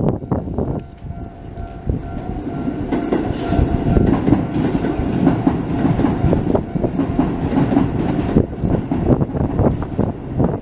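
Keisei Kanamachi Line train running past a level crossing, its wheels clattering over the rails. The sound grows loud from about two seconds in and stays loud.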